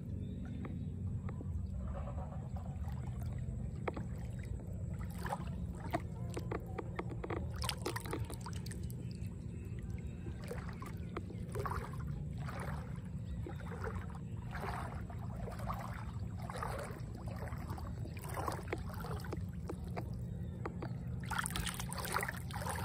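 Feet wading through shallow floodwater, a slosh with each step, coming about once a second through the second half and quickening near the end, over a steady low rumble.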